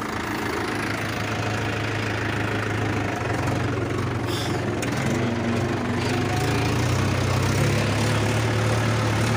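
Mahindra 585 XP Plus tractor's diesel engine running steadily while pulling a seed drill, growing gradually louder.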